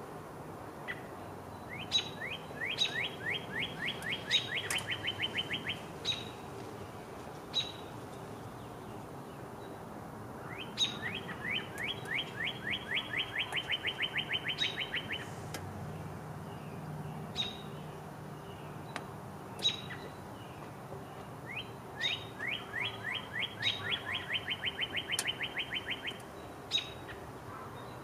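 A songbird singing the same trill three times, about every ten seconds: a run of quick downward-slurred notes, about six a second, lasting three to four seconds. Short single notes come between the trills.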